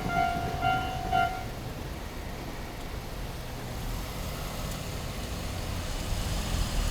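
Japanese railway level-crossing warning bell, an electronic pulsed tone, ringing and then stopping about a second and a half in as the crossing clears after the train. A low, steady rumble remains afterwards.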